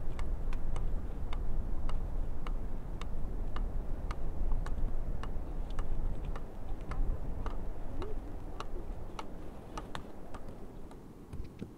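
Stones clacking and knocking against each other as they are picked up and set down, in short, sharp, irregular clicks, a few a second, thinning out near the end, over a steady low wind rumble.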